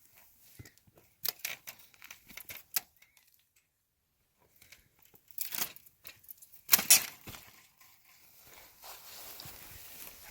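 Close rustling and crinkling handling noise, clothing or gear rubbing near the microphone, in short scattered crackles. About seven seconds in comes a louder, sharper crackle, followed by a faint steady hiss.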